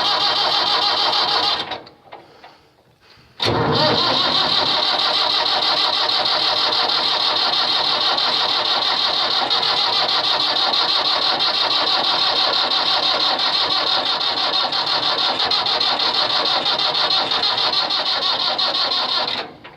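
Electric starter cranking a cold diesel tractor engine that will not fire. A short crank stops about two seconds in, and after a brief pause a long, steady crank of about sixteen seconds follows and stops near the end without the engine catching.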